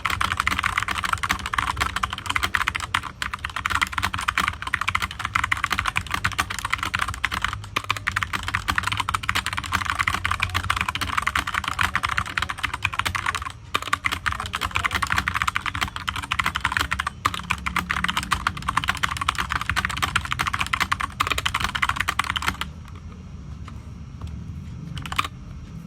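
Keychron K4 mechanical keyboard with brown switches being typed on fast and without a break, a dense stream of key clicks and bottom-outs. The typing stops suddenly near the end.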